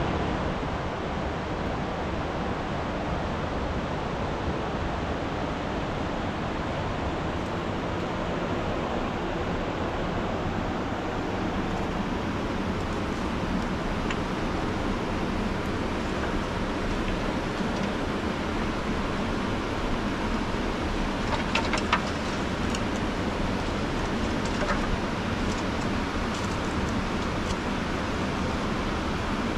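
Steady rushing noise, with a few sharp clicks and snaps a little past the middle as dry kindling is handled to light a fire.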